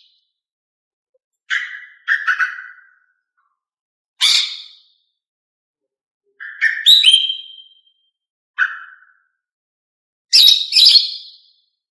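Female green leafbird (cucak ijo) giving short whistled chirps, about six brief calls with silent gaps between them, the last a quick double call near the end. These are the female's calls used as a lure to set a male cucak ijo singing.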